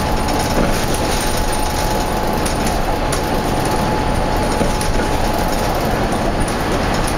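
Interior noise of a 2005 New Flyer transit bus with a Cummins diesel and ZF transmission cruising at speed: steady engine, tyre and wind noise with a steady high whine over it.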